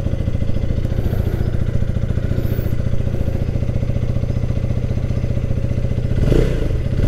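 2024 Husqvarna Vitpilen 250's 249 cc single-cylinder engine idling steadily just after being started, its exhaust giving a fast even pulse. It swells briefly near the end.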